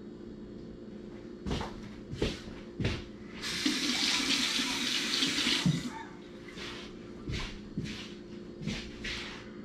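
Kitchen tap running for about two and a half seconds, turned on about three and a half seconds in and shut off abruptly. A few short knocks come before it and several short, sharp sounds after it, over a steady low hum.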